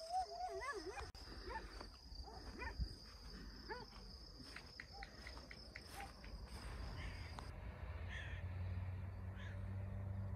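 Birds calling outdoors: a series of short, wavering calls over the first few seconds, with a steady high insect drone behind them that stops about seven seconds in. A low steady hum comes in near the end.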